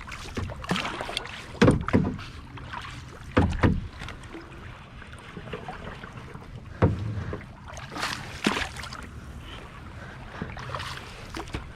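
A kayak being paddled: the paddle blade splashes into the water every couple of seconds, over a low rumble of wind on the microphone.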